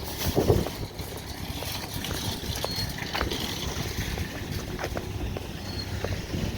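Footsteps on pavement: light, irregular clicks and scuffs over a steady outdoor background noise.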